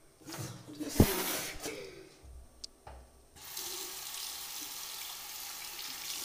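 A sharp knock about a second in, with some short handling noises, then a bathroom basin tap turned on and running steadily into the ceramic sink, splashing over a metal spoon and a hand rinsed under it.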